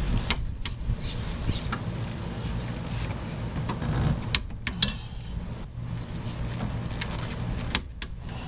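Hand tools working on a car's front wheel hub and steering knuckle: a handful of sharp metallic clicks and clinks, scattered irregularly over a steady low hum.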